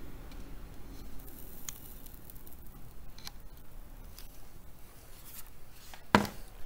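Faint scattered clicks and light scraping of hands working a hot-staple plastic welder along a crack in a plastic headlight, with one short, louder sound near the end.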